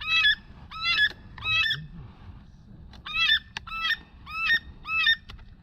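A duck call blown in a steady run of loud, nasal quacks, about two-thirds of a second apart: three, a short pause, then four more.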